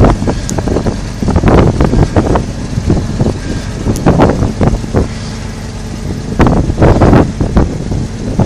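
Wind buffeting the microphone in irregular, loud gusts, with a faint steady low hum beneath that shows in the quieter stretch in the middle.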